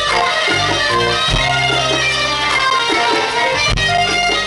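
Live band playing Malian desert blues: electric guitar picking quick melodic lines over bass guitar and a drum kit, heard through the stage PA.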